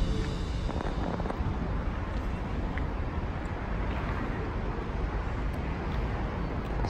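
Wind rumbling on a handheld microphone over a steady outdoor urban background noise, with no distinct event standing out.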